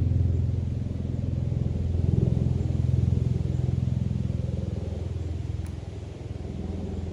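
A steady, low motor rumble with a fine, even pulsing, easing off a little near the end.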